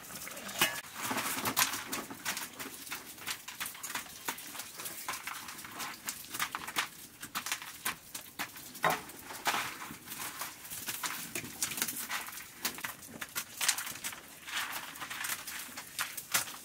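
Dried maize kernels being shelled off the cob by hand, giving dense, irregular clicking and pattering as the kernels drop onto a woven tray.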